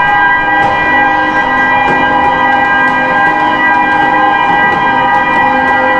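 Several horns sounding together in one long, loud chord of steady tones, with some lower tones cutting in and out and a few scattered clicks.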